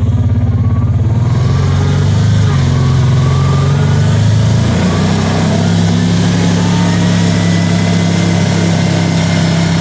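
Kawasaki Teryx side-by-side's engine running while under way. Its pitch shifts a couple of times in the first half, then holds steady.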